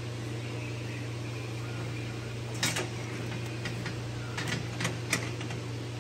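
Light metal clinks and taps, a handful at irregular intervals starting about two and a half seconds in, from coil-over springs and shock retainer hardware being handled on a rear shock. A steady low hum runs underneath.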